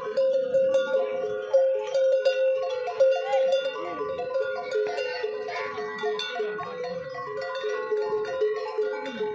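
Several cattle neck bells clanking and ringing irregularly and overlapping as a herd of cattle walks.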